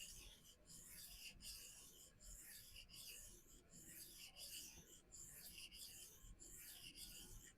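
Faint, even rasping strokes, about two a second, of an S30V steel pocket-knife blade drawn freehand across a vitrified diamond sharpening stone.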